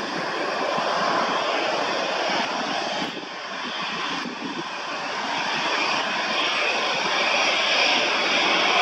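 Twin jet engines of an easyJet Airbus A320-family airliner turning slowly on the runway at low power: a steady rush with a faint high whine. It dips briefly about three seconds in, then grows louder toward the end.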